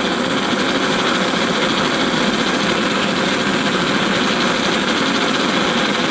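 Antique paraffin blowlamp burning under pressure: an even, steady rushing noise from its vaporised-paraffin flame.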